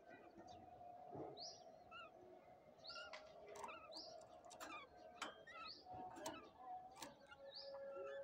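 Domestic canary chirping faintly: a string of short, separate chirps and quick downward-sweeping notes with sharp clicks between them.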